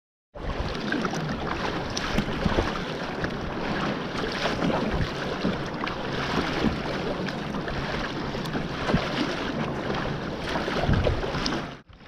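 Wind buffeting the microphone over choppy sea, with water lapping and splashing against a kayak's hull in scattered small splashes. The sound drops out briefly near the end.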